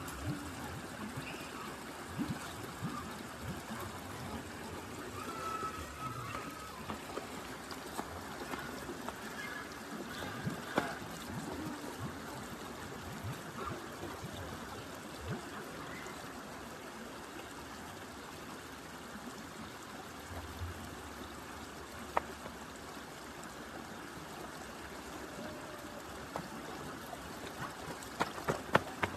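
Steady running water, a continuous trickling flow, with a few faint clicks and short chirps over it. A quick run of sharp knocks starts right at the end.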